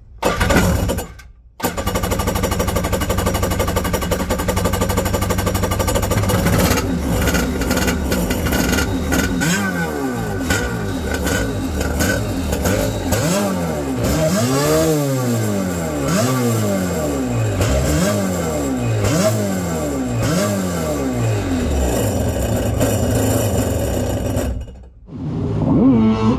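Kawasaki 650SX jet ski's two-stroke engine starting with a short burst, then running steadily. Through the middle it is revved up and down over and over, each blip rising and falling in pitch. The engine sound cuts off abruptly near the end.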